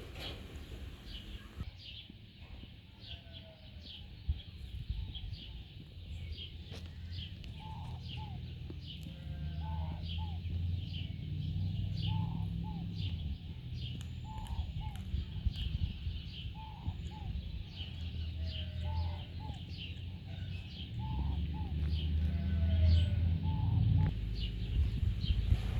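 Small birds chirping over and over, with short high chirps and lower bending calls, over a low rumble that grows louder in the second half.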